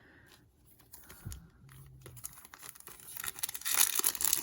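A foil trading-card pack wrapper being torn open and crinkled by hand, quiet at first, with loud crackling from about three seconds in.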